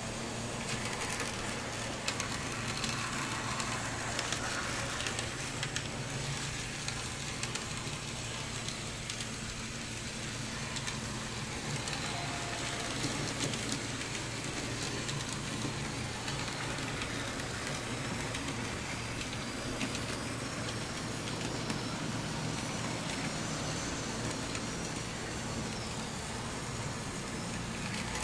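N scale model trams running on their track: a steady whirr of small electric motors with light, irregular clicking and crackle from the wheels on the rails.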